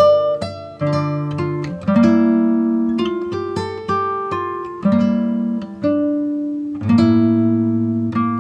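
Background music of plucked string notes and chords, a new chord about every second, each one ringing and fading.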